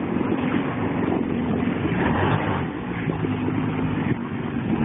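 Jet ski engine running at low speed while the craft backs away in reverse. Its pitch shifts a little midway.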